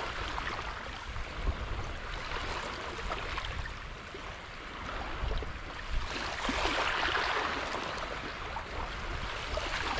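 Small waves washing in the shallows, with one wash swelling up about two-thirds of the way through, over a low rumble of wind on the microphone.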